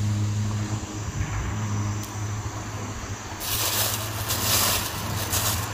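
A steady, low engine drone. About three and a half seconds in, a hiss joins it, coming and going in bursts.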